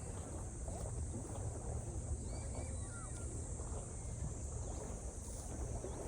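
Outdoor ambience: wind rumbling on the microphone under a steady high-pitched drone, with a few faint short chirps about two to three seconds in.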